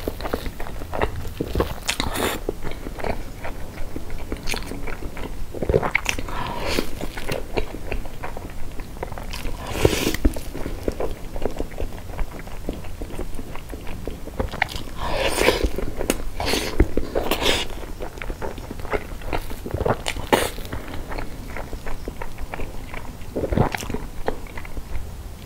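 Close-miked chewing and biting of soft cream-filled sponge cake, in irregular bursts, with louder mouthfuls about ten seconds in and again around fifteen to seventeen seconds.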